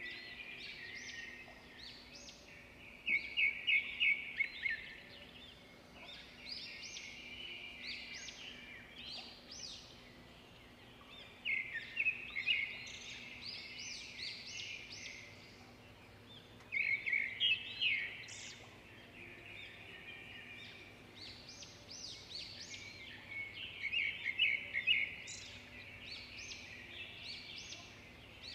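A small songbird singing in bursts of rapid high chirps and trills, loudest about three seconds in and again near twelve, seventeen and twenty-four seconds.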